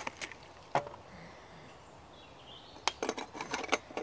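Handling knocks on a wooden table: a single sharp knock just under a second in, then a quick run of small metallic clinks near the end as a Trangia spirit burner is fitted into a folded sheet-metal pot stand.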